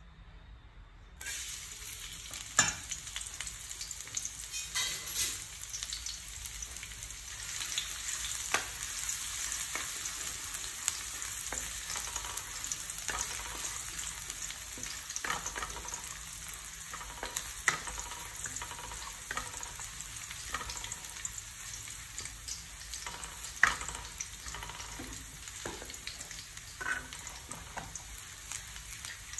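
Minced garlic sizzling in hot oil in a non-stick wok, the hiss starting suddenly about a second in as the garlic goes into the oil. It is stirred with a wooden spatula, which scrapes and taps against the pan in scattered sharp clicks.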